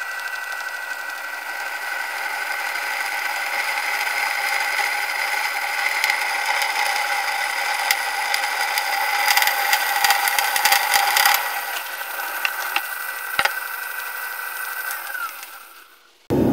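Electric drill with a twist bit boring through a steel blade cut from a motorcycle brake disc: a steady motor whine with the scrape of the bit cutting, and a rapid crackling a little past halfway as it bites through. Near the end the motor winds down and stops.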